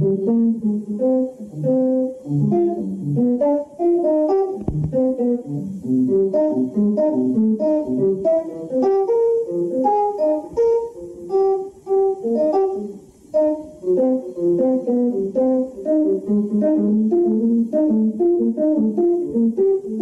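Jazz guitar improvising a steady stream of short picked single notes. The line uses only chord tones, outlining the chords as arpeggios rather than running scales.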